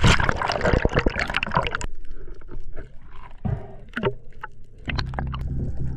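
Loud splashing for about two seconds as a spearfisherman with a speargun goes into the sea from the boat, then muffled underwater bubbling and gurgling. Background music comes in near the end.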